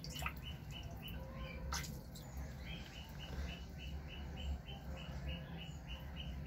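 A bird chirping in a run of short, evenly spaced high notes, about three a second, mostly in the second half, over a low steady hum, with two faint clicks in the first two seconds.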